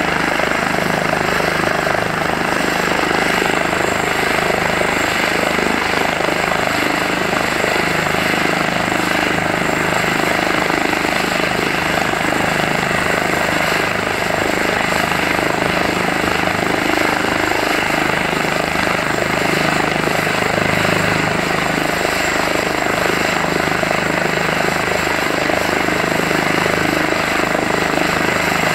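Airbus EC145 T2 air ambulance helicopter running on the ground, its twin turboshaft engines and rotors turning at a steady speed. It gives a steady, unchanging whine over rotor and engine noise.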